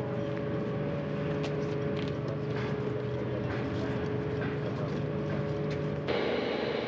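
Launch-pad ambience: a steady mechanical hum of several fixed tones over a haze of wind noise, with scattered faint clicks. The sound changes abruptly about six seconds in.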